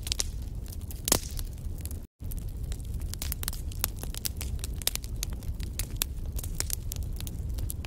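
Wood fire crackling, with frequent irregular sharp pops over a low rumble of flames and one louder pop about a second in. The sound cuts out for an instant about two seconds in.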